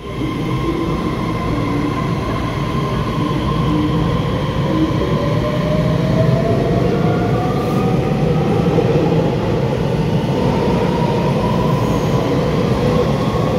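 Taiwan Railway EMU3000 electric multiple unit pulling out of the station and gathering speed. Its traction motors whine, rising steadily in pitch as it accelerates, over a continuous rumble of wheels on rail in an echoing underground station.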